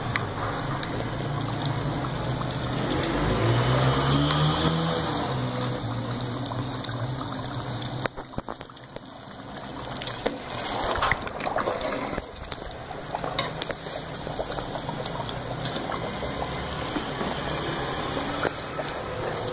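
Hot oil in a frying pan sizzling and crackling as red chili powder fries in it, making a chili-oil tempering. A low hum runs underneath during the first half.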